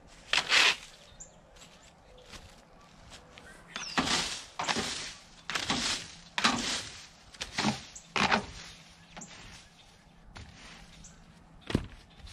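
Plastic leaf rake scraping dry dead plant stalks and leaves across the soil, then a series of short, separate swishes and rustles of dry garden debris being handled. There is one sharp click near the end.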